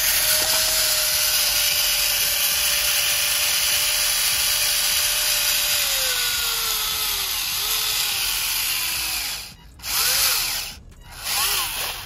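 Electric drive motor and gearbox of a homemade remote-control toy tractor whirring at full power as it drags a weight-transfer pulling sled. About halfway through, the whine drops steadily in pitch as the motor slows under the growing load. It cuts out near the end, then gives two short whirs.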